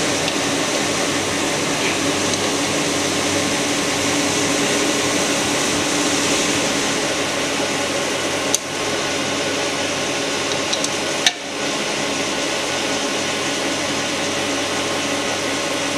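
Steady whir and hum of an AMC 1500H crankshaft grinder running, with a low steady tone under it. Two sharp clicks, one about halfway through and another about three seconds later.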